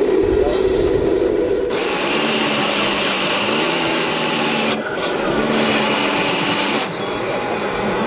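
Whine of the small electric motors of a radio-controlled model wheel loader working its bucket, shifting in pitch as it runs. It stops briefly near the middle and starts again. A steady low drone comes before it.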